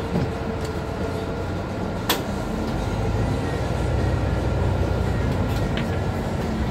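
Mercedes-Benz Citaro C2 city bus running, heard from inside: a steady low rumble of engine and road that swells from about three seconds in. There is one sharp click just after two seconds.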